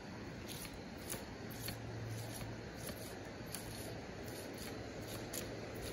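Faint rustling and light scattered clicks of a notebook and pen being handled as a caught fish is logged, over a steady background hiss.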